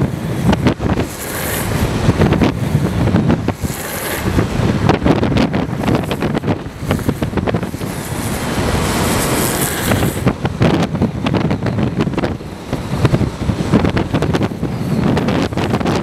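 Wind buffeting the microphone over the fast rolling rumble of longboard wheels on asphalt, with short ticks from the road surface. Several bursts of high hiss, the longest about eight seconds in, come as the wheels slide through the corners.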